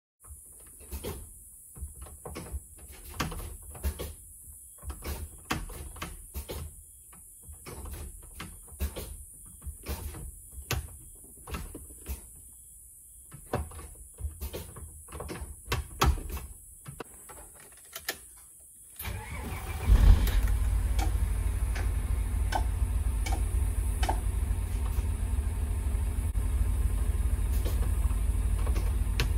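Mitsubishi Fuso Aerostar S bus's MD92 diesel engine: first a run of irregular clicks and knocks in the driver's cab, then about 19 seconds in the engine cranks and starts with a sudden jump in loudness and settles into a steady idle.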